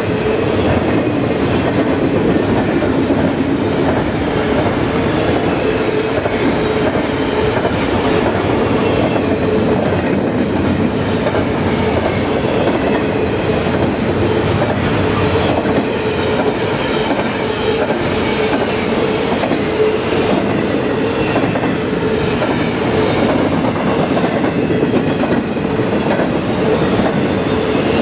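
Double-stack intermodal freight train rolling past: a steady rumble of steel wheels on rail with the regular clickety-clack of wheels over rail joints.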